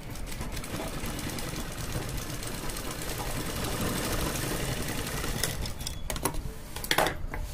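Usha sewing machine stitching a seam, its needle running in a fast, even rattle for about five seconds before it stops. A few separate clicks follow near the end as the work is handled at the machine.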